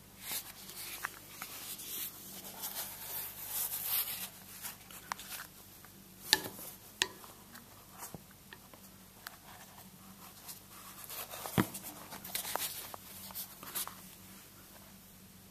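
Irregular soft rustling and scratching, with a few sharp clicks; the busiest stretches are about 2 to 4 seconds in and again near the end.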